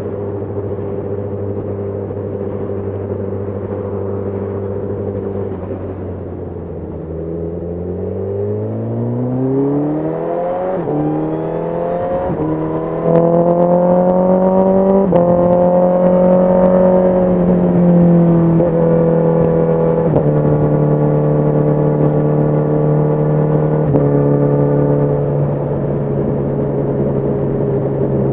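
Honda CBR1000RR SP2 Fireblade's inline-four engine through its stock exhaust: a steady low note at first, then revs rising from about seven seconds in, with the pitch breaking at each gear change, before the engine settles at a steadier speed, its note stepping down a few times.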